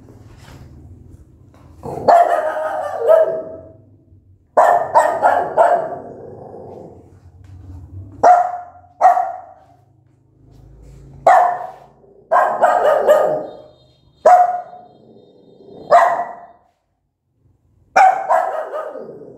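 Small white mother dog of a newborn litter barking angrily, in loud single barks and quick runs of three or four, a second or two apart.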